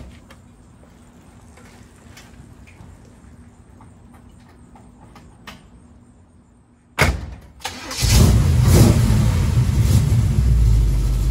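Small-block Chevy V8 in a 1936 Chevy coupe hot rod being started: a few quiet seconds with faint clicks, then a short burst of cranking about seven seconds in, and the engine catches just before eight seconds and runs steadily with a low rumble.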